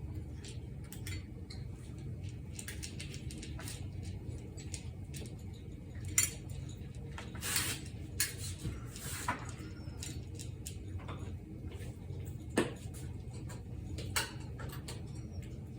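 Pet food bowls clicking and clinking at irregular intervals, with several sharper clinks, over a steady low hum.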